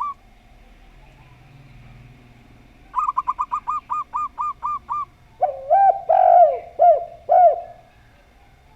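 Dove calls in turn. A zebra dove (perkutut) gives a quick run of about ten short, higher cooing notes. A spotted dove (tekukur) then answers with five louder, lower, arching coos.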